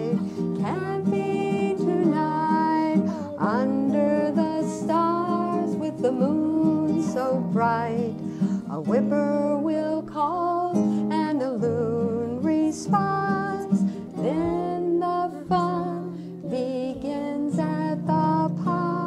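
A woman singing a children's song, accompanying herself on acoustic guitar.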